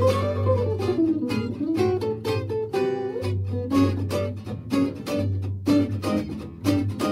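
Background music: guitar strummed in a steady rhythm, with a melody line that slides down in pitch during the first second or so.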